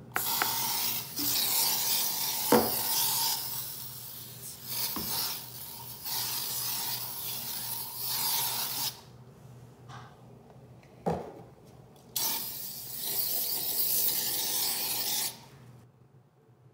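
Scrubbing Bubbles Bathroom Grime Fighter aerosol can spraying foam cleaner in three long hissing bursts that start and stop sharply, with a couple of short knocks.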